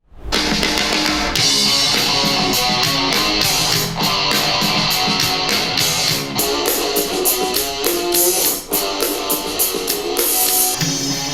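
Music with guitar and a drum kit, starting right away and keeping a steady beat.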